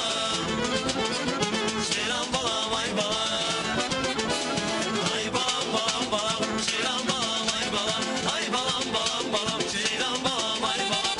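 Live band playing an upbeat Azerbaijani pop song with a steady percussion beat, while a male singer sings into a handheld microphone.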